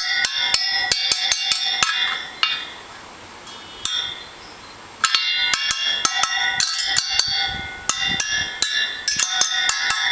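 Freshly tensioned steel spokes of a motorcycle rear wheel tapped in quick succession with a metal tool. Each tap gives a short clear ring, the ring of a tight spoke. The tapping runs several strikes a second, pauses for a couple of seconds partway through, then resumes.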